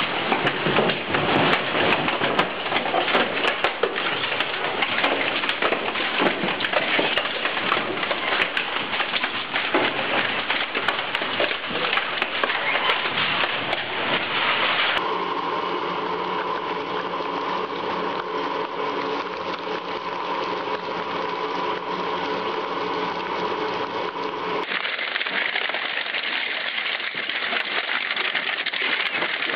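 Industrial twin-shaft shredder's cutters crunching and tearing steel drums: a dense, loud crackle of metal with many sharp cracks. About halfway it switches abruptly to a steady machine drone with a hum for about ten seconds, then dense crunching resumes near the end.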